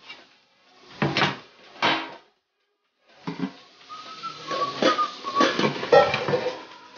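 Metal pan lid lifted off a large aluminium pan, clanking twice, about one and two seconds in. From about three seconds, a run of mixed clattering and knocking of pots and utensils.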